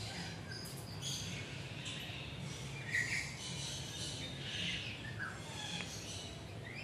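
Birds chirping: scattered short calls, the loudest about three seconds in, over a steady low background hum.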